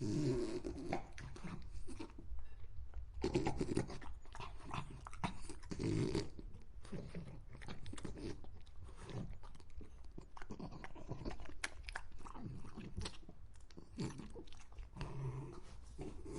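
A dog chewing with many sharp crunching clicks, panting in between, and short low throaty sounds now and then.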